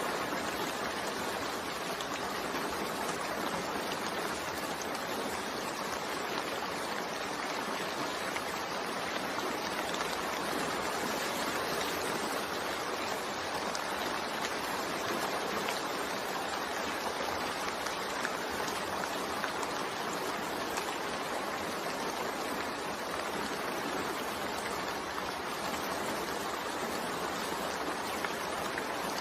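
Steady, even rain, with faint scattered drop ticks.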